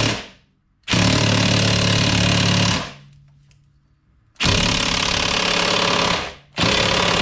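Impact gun hammering in repeated bursts of about two seconds on the threaded rod of a bearing press tool, with short pauses between. The gun is not strong enough to turn the rod, so it barely moves.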